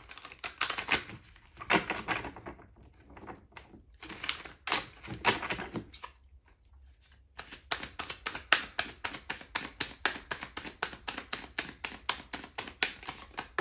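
A deck of tarot cards being shuffled by hand: a few riffling bursts in the first half, then a fast run of card clicks, several a second, from overhand shuffling through the second half.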